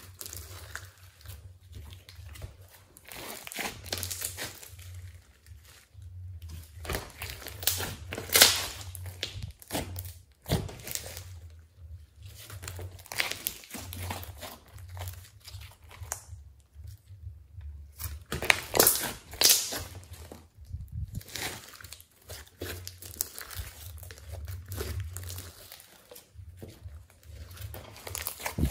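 Hands squeezing, folding and stretching a lump of glossy slime: irregular sticky crackling and tearing sounds, loudest about 8 and 19 seconds in.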